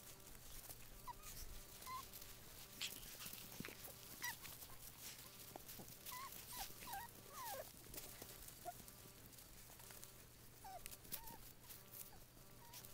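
Young Puggle puppies whimpering and squeaking faintly: short high squeaks scattered through, with a quick run of them around the middle, over faint clicks and rustles.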